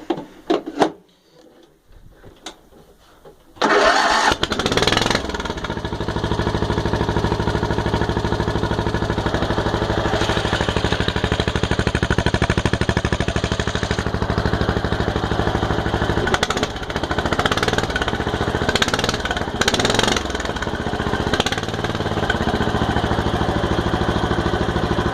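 Husqvarna riding mower engine breathing through a two-inch exhaust stack: a few clicks, then it starts about three and a half seconds in and runs, its speed shifting now and then.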